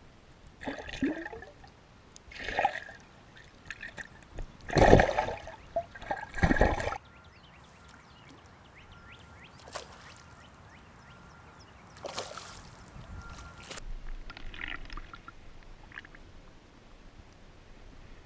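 Water sloshing and splashing in short bursts, the loudest about five and six-and-a-half seconds in, then a hooked largemouth bass splashing at the surface of shallow water about twelve seconds in.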